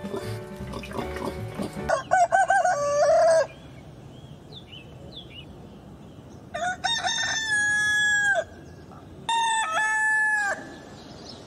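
Roosters crowing three times: about two seconds in, about seven seconds in, and about nine seconds in, each a long crow. Faint high chirps of small birds are heard between the first and second crow.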